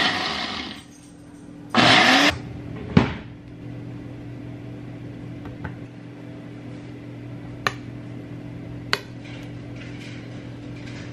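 Countertop blender running and spinning down, then given one more short pulse that winds down about two seconds in, followed by a sharp knock. A steady low hum and two small clicks fill the rest.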